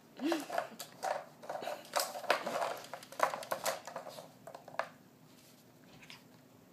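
A Havanese dog nosing and pawing at a hard plastic paw-shaped treat puzzle: irregular clicks, knocks and scrapes of the plastic lids, stopping about five seconds in.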